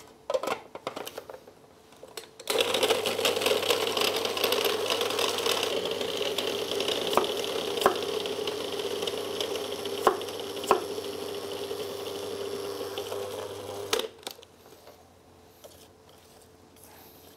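Electric food processor running, chopping boiled garlic and watercress, after a few light clicks; it runs steadily for about eleven seconds with a low hum and a few sharp ticks, then cuts off suddenly.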